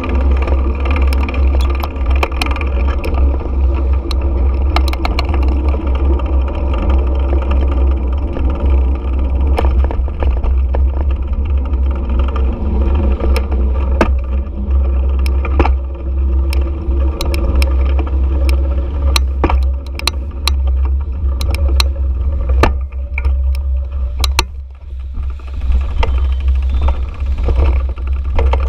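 Motorbike engine running while riding through street traffic, under a heavy low rumble of wind and road noise on the mounted camera, with frequent sharp clicks and rattles. The engine and rumble drop off briefly a few seconds before the end, then pick up again.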